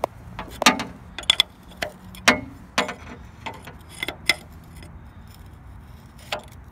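Steel wrench clinking on a double-nutted stud at an engine's motor mount as the stud is turned out: a run of irregular sharp metallic clicks, some ringing briefly, thinning out after about four seconds with one more click near the end.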